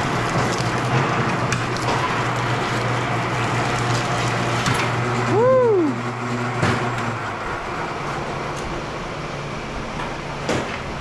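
Automatic wire-stripping machine running as thick 500 MCM copper cable is fed through it: a steady mechanical hum with noise. About halfway there is a short squeal that rises and falls in pitch, the hum stops about seven seconds in, and a couple of knocks follow.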